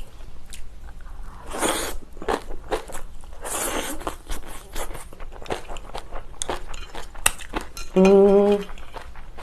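Slurping instant ramen noodles topped with kimchi, two long slurps in the first half, then crunchy chewing of the napa cabbage kimchi with many small clicks. Near the end comes a short hummed "mm".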